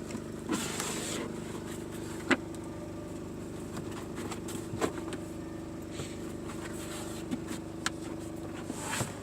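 Boot floor and trim being handled in a car's open boot: a rustle, then a few sharp knocks, the loudest a little over two seconds in, over a steady low hum.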